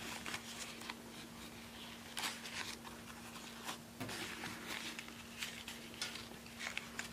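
Banana leaf rustling and crinkling in short, scattered crackles as hands fold and press it into a wrapped parcel, with a faint steady hum underneath.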